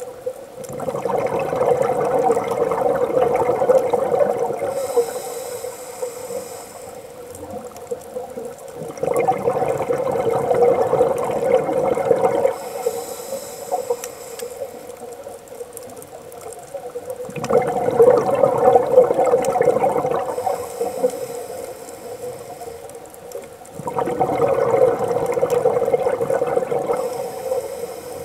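Scuba diver breathing through a regulator underwater: four long rushes of exhaled bubbles, about three seconds each and some eight seconds apart, with a short high hiss of inhalation between them over a steady low hum.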